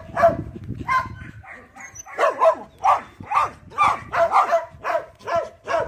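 Dog barking over and over in play, short pitched barks and yips about two a second.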